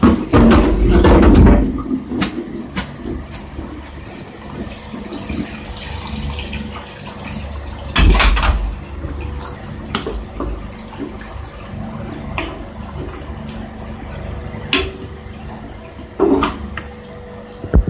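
Thick tomato sauce simmering in a frying pan, stirred and scraped with a wooden spatula, with a steady faint hum underneath. About eight seconds in comes a louder burst as the boiled spaghetti goes into the pan, then a few clicks and knocks of the spatula as it is tossed in the sauce.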